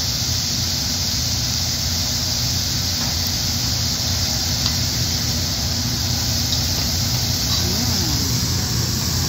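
Food sizzling on a hot teppanyaki griddle: a steady, even hiss over a constant low hum.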